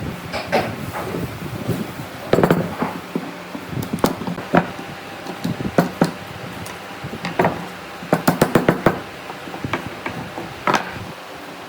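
Irregular knocks and taps of wood and hand tools being handled in a workshop, with a quick run of several knocks about eight seconds in.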